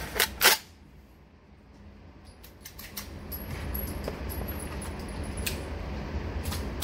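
Two sharp metallic clacks as the action of a 12-gauge bullpup shotgun is cycled by hand, because the bolt will not stay locked open. Faint handling clicks follow over a steady low rumble.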